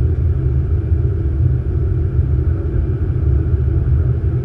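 Steady low rumble of flight-deck noise in an Airbus A380 cockpit on final approach, the airflow and engine noise of the airliner in flight.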